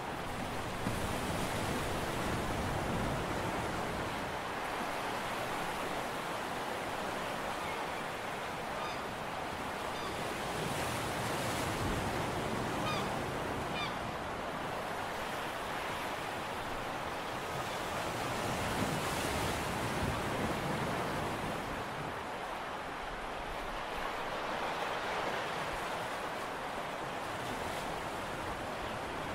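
Steady wash of sea and wind noise, rising and easing slowly, with a few faint, short, high bird chirps about a third of the way through.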